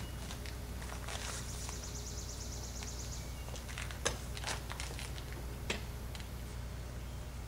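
Handling noise of an old electric drill that is switched off: a few light knocks as it is picked up and its bit is set against a wooden board, over a steady low hum. A high, rapid ticking trill sounds for about two seconds near the start.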